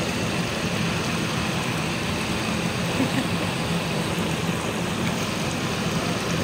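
Steady rushing noise of a hot-spring steam vent jetting steam and spray out of the riverbank across the water, mixed with the flowing stream.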